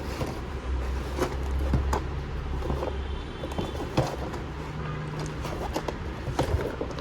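Light clicks and rustles of a cardboard model-car box being handled and turned, over a steady low hum.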